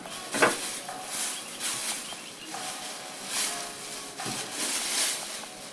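A knock about half a second in, then rustling as items are handled, in several short swells.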